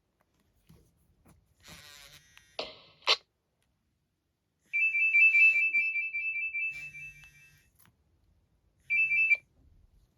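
A Nokia E65 mobile phone playing one of its stock ringtones: a high electronic tone trilling for about three seconds, then a brief snippet of it again near the end. A few short sounds come before it.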